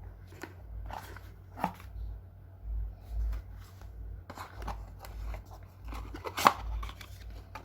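Paper booklets and cardboard packaging being handled: a string of small clicks, taps and rustles, with a sharper click about six and a half seconds in, over dull low bumps from the box being moved.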